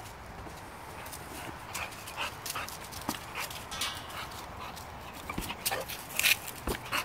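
A bulldog playing, its dog sounds mixed with irregular scuffing and crackling of paws in dry leaves as it chases the ball, with a louder scuffle about six seconds in.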